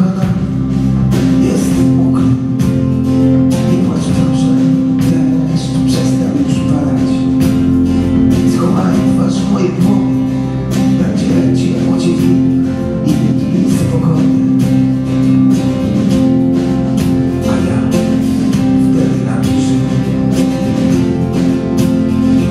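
A live band playing a song: strummed acoustic guitar over a steady beat with quick percussion strokes, with no clear sung words.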